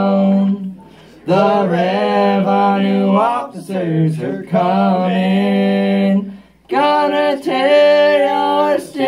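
Men singing a bluegrass song in harmony, long held notes in phrases broken by short breathing gaps, the voices well above the string-band accompaniment of mandolin, banjo and guitars.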